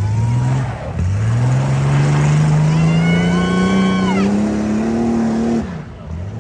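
A tough truck's engine under hard acceleration. A short burst falls away about a second in, then the revs climb steadily for several seconds before the throttle lifts off abruptly near the end. A high whine rises and falls partway through the pull.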